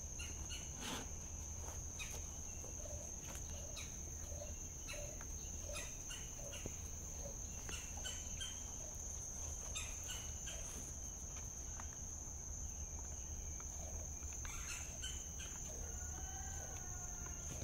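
Steady high-pitched insect drone, with scattered clucking from chickens, a run of short calls a few seconds in, and a short wavering call near the end; light clicks and knocks in between.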